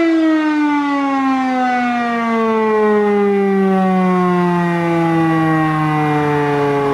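E57 electromechanical motor siren winding down, its pitch falling slowly and evenly as the rotor coasts after the power is cut. It is sounding the fire brigade call-out alarm.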